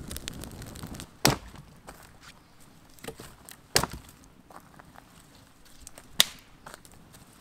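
Dry firewood sticks snapped by hand: three loud, sharp cracks, a couple of seconds apart. In the first second, a wood campfire crackles.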